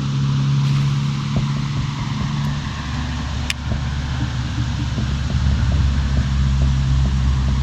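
A vehicle running steadily: a low engine drone with rumble and hiss, and one brief sharp tick about three and a half seconds in.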